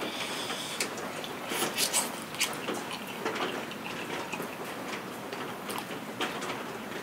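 A person chewing and biting into mung bean pancake, giving irregular small crackles and clicks, over steady falling rain.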